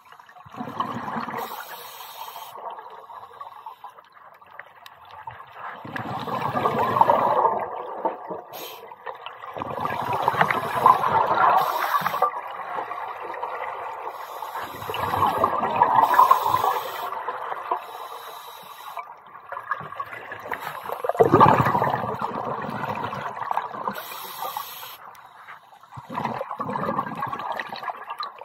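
Scuba diver's breathing through a regulator underwater, picked up through a camera dive housing: a rush of exhaled bubbles swelling and fading about every five seconds, six times, with quieter hissing between the breaths.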